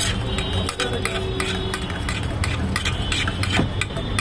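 Metal utensil stirring and scraping against a metal vessel in quick, irregular clicks, mixing soya chaap with cream and chaat masala.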